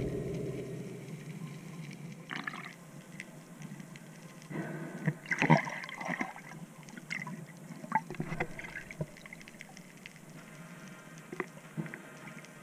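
Underwater water hiss with bubbling and irregular clicks and knocks, busiest about five to six seconds in, as a speared gilthead seabream thrashes on the spear shaft.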